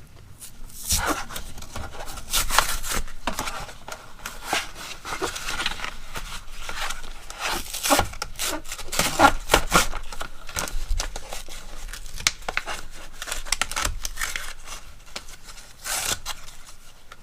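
Product packaging being torn and crinkled open by hand: a run of irregular ripping, scraping and crackling noises.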